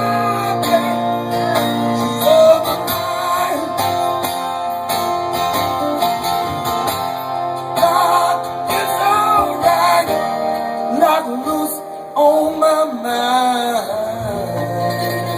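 Live band music: an instrumental stretch led by guitar, with bending, held notes over sustained chords.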